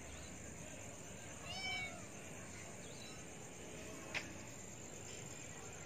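Stray kitten meowing for its mother: one clear meow about a second and a half in and a fainter one near four seconds, followed by a sharp click. Crickets chirp steadily underneath.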